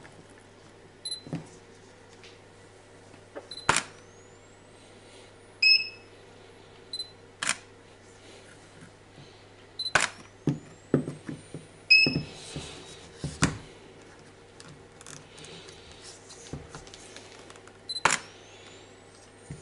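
Camera shutter clicks from a camera in an underwater housing, four of them. Three are each followed by a rising whine, the Sea&Sea YS-110 strobe recharging after being fired through the fibre-optic slave cable. Short high electronic beeps come before and after the shots, with some handling knocks.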